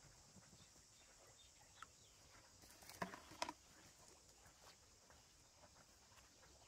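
Near silence: faint outdoor background with a few soft clicks, the clearest about three seconds in.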